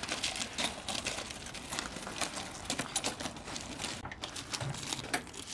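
Gravel crunching under a motorcycle rear wheel rolled by hand, with footsteps on the gravel: a continuous run of small irregular crackles.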